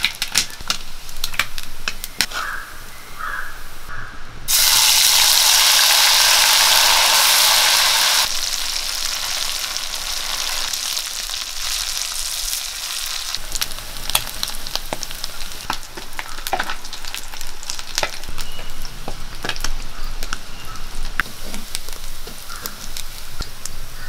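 Marinated anchovies deep-frying in hot oil in a kadai, sizzling steadily with scattered pops and crackles. About four seconds in, the sizzle jumps suddenly to a loud, dense hiss for a few seconds, then settles back to a steady fry.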